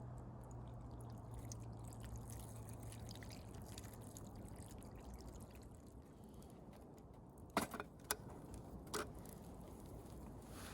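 Faint sizzling and crackling of food cooking, with a low hum that fades out midway and three sharp clicks about eight seconds in.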